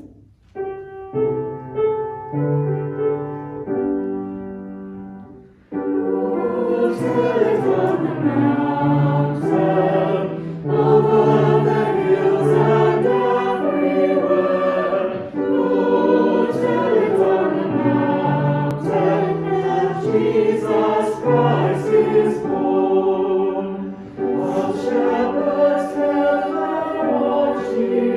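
A choir singing a hymn with accompaniment. A few seconds of instrumental introduction, then the voices come in about six seconds in.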